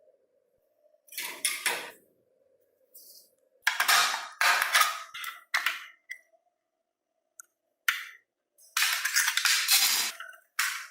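Small hard parts and tools clattering and scraping against each other in several short bursts, while a toy model car is worked on by hand.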